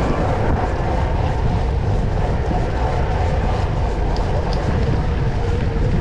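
Steady wind rushing over the microphone of a camera on a cyclocross bike, mixed with the low rumble of the bike's tyres rolling on wet pavement.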